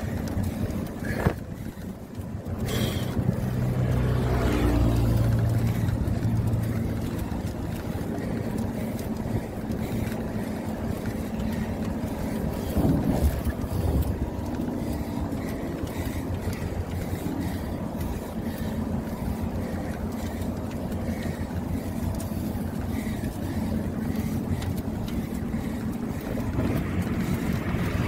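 Wind rushing over the microphone of a phone carried on a moving bicycle, over a steady low rumble of motor traffic. A single sharp click about a second in.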